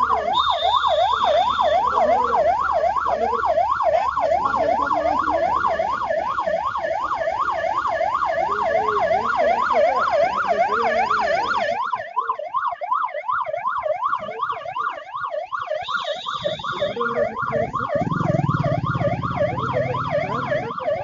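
Electronic siren in a fast yelp, its pitch rising and falling rapidly several times a second without a break.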